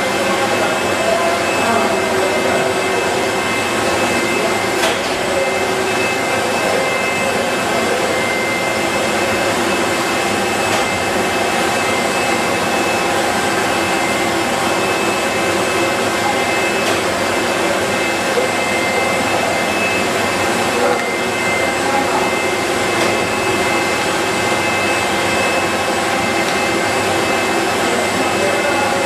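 Steady running noise of candy-making line machinery, its motors and fans giving an even hiss with a few constant high-pitched whines that do not change.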